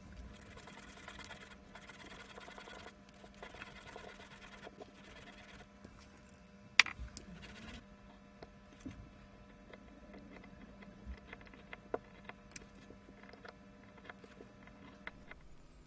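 Faint scratching of fine 1200-grit abrasive paper rubbed around the copper commutator of a DeWalt DC725 drill motor's armature, cleaning off the grime behind its arcing. The rubbing is strongest in the first few seconds, with a sharp click about seven seconds in and a few lighter ones later, over a low steady hum.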